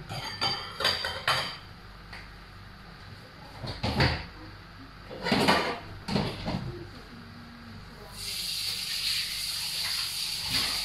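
Kitchen clatter: a few clinks of pots and utensils near the start, then scattered knocks. About eight seconds in, a steady hiss sets in and holds.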